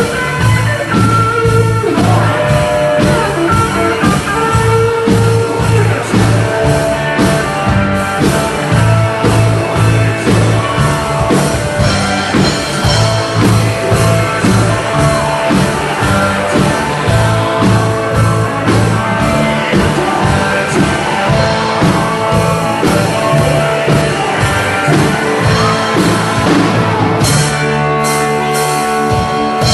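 Live rock band playing, with guitar, bass and a steady drum beat, and singing at times.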